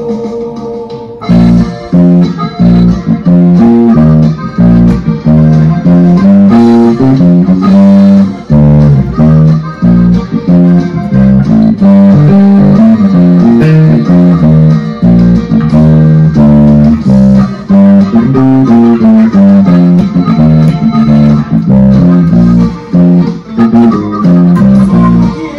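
Electric bass guitar played along with a recorded song; the full band music comes in loudly about a second in, with a steady rhythmic bass line.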